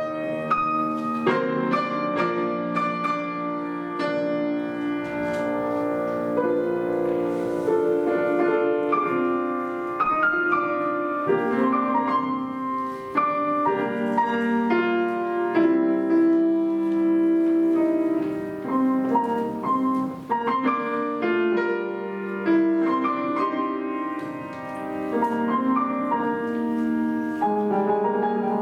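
Piano music in a classical style, played without a break: a steady stream of notes and chords, some held for a second or more.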